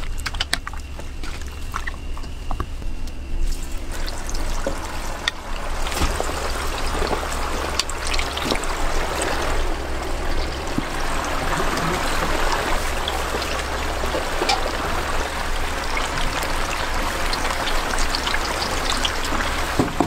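Wet squelching and sloshing of chicken pieces being stirred through thick batter in a steel bowl, with many small clicks. It is sparse at first and grows into a dense, steady wet noise about four seconds in.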